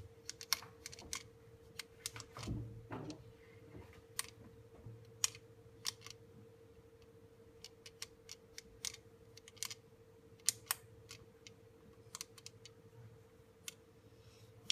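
Abacus beads clicking as a child flicks them with her fingers, in quick irregular clicks, sometimes several close together, over a steady faint hum.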